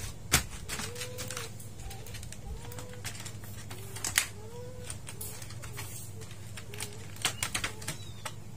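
Light clicks and taps as LED backlight strips and the reflector sheet are handled inside an opened LED TV's back panel, the sharpest click about a third of a second in and another about four seconds in, with a quick run of clicks near the end, over a steady low electrical hum.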